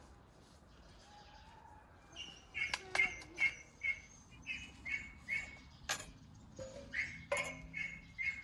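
A bird calling in a steady run of short, high chirps, about two a second, starting a couple of seconds in. A few sharp metallic clinks come between them as steel skewers and a large steel pan are handled on a metal barrel grill.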